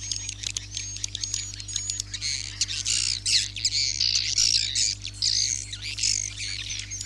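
Recorded swiftlet roosting calls, the 'suara inap' lure sound played in swiftlet houses to coax edible-nest swiftlets to stay overnight: dense high twittering and chirping, thickest in the middle, over a steady low electrical hum.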